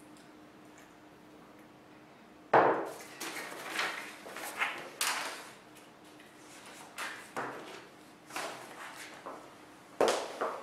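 A faint steady hum, then about two and a half seconds in a sharp knock, followed by a string of irregular knocks and clatters, one or two a second, in a small room.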